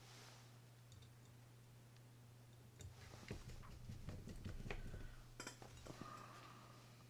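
Light metallic clicks and taps from a small screwdriver and metal reel parts being handled, clustered in the middle few seconds, over a steady low hum.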